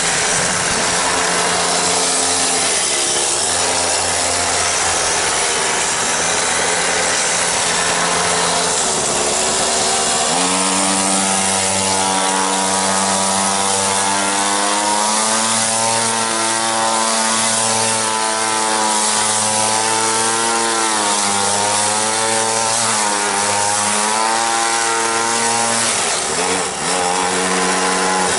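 Small engine of a home-built quarter-scale RC car running. It idles steadily for about ten seconds, revs up and holds a higher, wavering pitch under throttle, then drops back to idle near the end.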